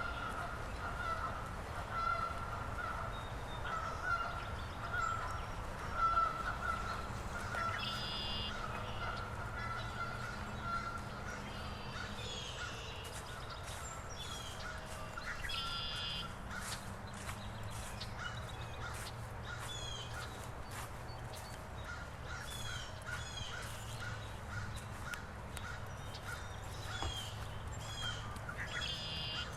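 Birds calling: a run of short repeated notes at one pitch, a few harsh honk-like calls, and later many quick chirps, over a low steady rumble.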